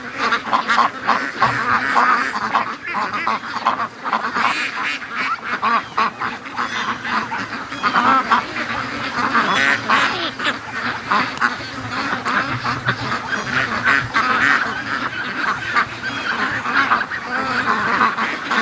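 A large flock of domestic ducks quacking continuously, many calls overlapping with no break.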